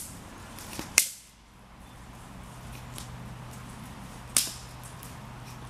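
A few sharp, isolated cracks, the loudest about a second in and another near the end, over a faint steady low hum.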